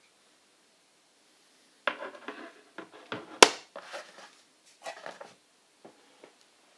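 Handling noise from unboxing a camera filter: a run of small clicks, knocks and scrapes as the filter, its lens cap and the presentation box are handled, starting about two seconds in. One sharp click just past halfway is the loudest, and a few light clicks follow near the end.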